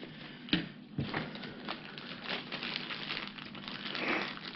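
Paper manuals being handled, then a clear plastic bag of hardware crinkling in the hands, with scattered small clicks and ticks.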